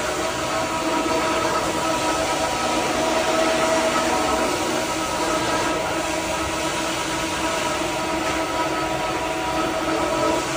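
Floor scrubbing machine running steadily during a wet chemical wash of the floor: a constant motor whine over a rushing hiss.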